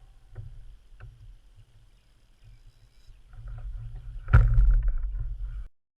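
Kayak on the water: a low rumble on the microphone with a couple of light knocks, then a loud knock on the hull about four seconds in. The sound cuts off suddenly near the end.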